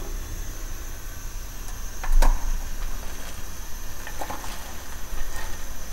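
Chicken stock boiling in a kadai on a gas burner, a steady low rumble and hiss. A knock comes about two seconds in. About four seconds in, chopped carrot, onion, cabbage and peas are tipped from a plate into the boiling stock.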